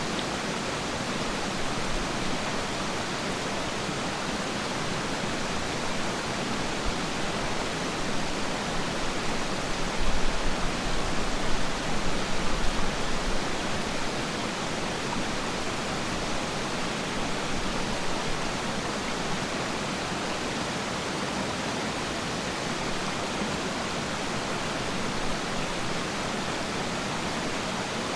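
Waterfall: a steady, even rush of falling water. A few louder, low rumbling surges come about ten seconds in.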